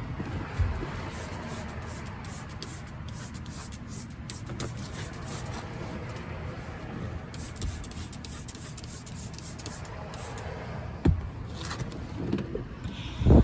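Black fabric dye being worked into car floor carpet: many short, scratchy scrubbing strokes, with a couple of sharp knocks near the end.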